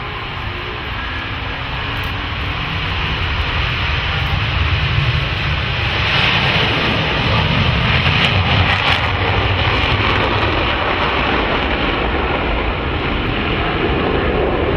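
Four F/A-18 Hornet jets taking off together in formation with engines in afterburner. The jet noise builds as they roll and pass, loudest about six to nine seconds in, then stays loud as they climb away.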